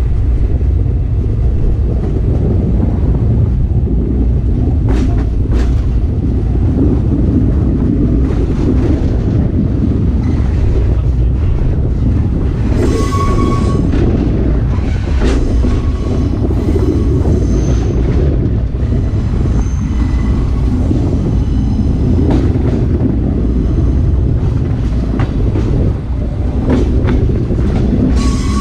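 Sightseeing trolley train rolling along the track, heard from its leading coach: a steady low rumble of wheels and running gear, with clacks over rail joints scattered throughout and brief wheel squeals about halfway through.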